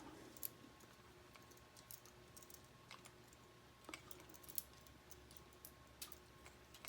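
Faint, scattered clicks of K'nex plastic rods and connectors being handled and snapped together, over a faint steady hum.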